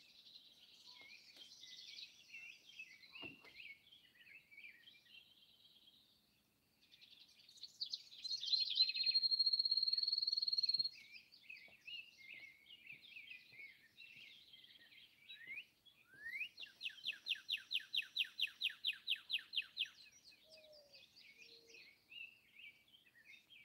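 Several wild birds singing together in a morning chorus of mixed chirps and trills. About eight seconds in one bird gives a loud, long, steady high trill lasting about three seconds. Later a fast, even run of repeated notes goes on for about three and a half seconds.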